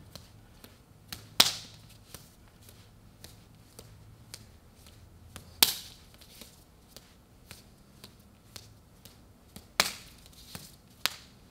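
Hands and forearms slapping and brushing together in a Wing Chun bil gee hand drill of slaps, grabs and chops: a running string of light smacks, two to three a second, with a few sharper slaps, the loudest about a second and a half in, others near the middle and near the end.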